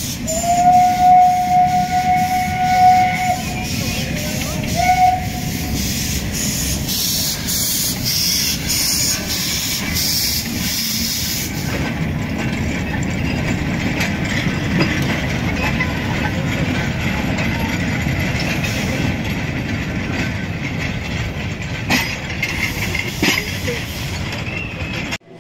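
Narrow-gauge steam locomotive blowing its steam whistle, one long blast of about four seconds followed by a short toot, then running past hauling loaded wagons, its exhaust chuffing about twice a second over a steady rumble of wheels and steam hiss.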